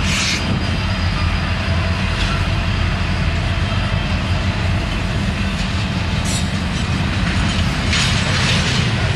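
Double-stack intermodal container well cars rolling past on jointless track, giving a steady, loud rumble of steel wheels on rail. Short high-pitched rushes of wheel noise rise out of it near the start, about 2 and 6 seconds in, and most strongly near the end.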